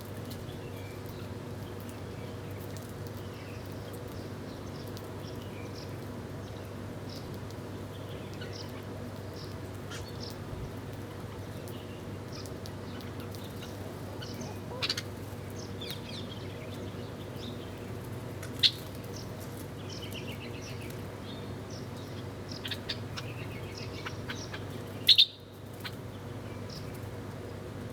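Small birds chirping in short, scattered calls, with a few louder chirps about halfway through and near the end, over a steady low background hum.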